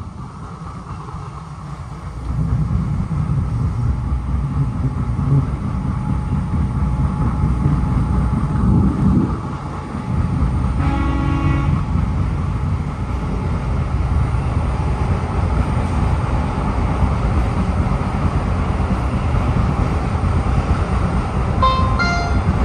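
PATCO Speedline rapid-transit train running on its rails, heard from inside the front car. The rumble grows louder about two seconds in. About 11 seconds in, as the train enters the tunnel, the horn gives a short blast, and a few brief high tones sound near the end.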